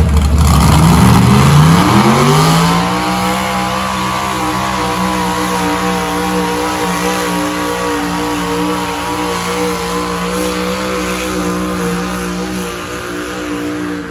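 Farm tractor's engine revving up hard as it starts dragging a weight-transfer sled, its pitch climbing steeply over the first couple of seconds. It then holds a steady high-revving note under load as it pulls the sled down the track, and begins to ease off near the end.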